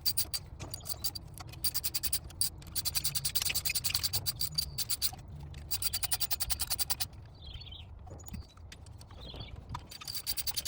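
Socket ratchet clicking rapidly in runs as it drives the intake manifold bolts down with a 12 mm socket, stopping about seven seconds in and starting again near the end.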